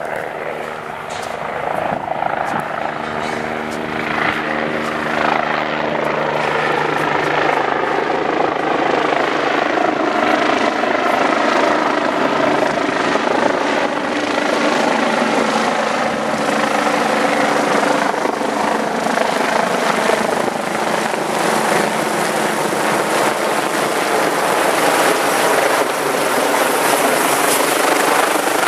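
BK 117 twin-engine rescue helicopter approaching to land, its rotor and turbine noise growing louder as it comes in overhead. A steady low hum sits under it for the first few seconds, then fades out about six seconds in.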